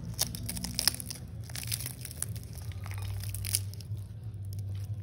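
A sugar-dusted crepe roll filled with black sticky rice being torn apart by hand: a run of quick crackling, crinkly tearing sounds. A low steady hum runs underneath.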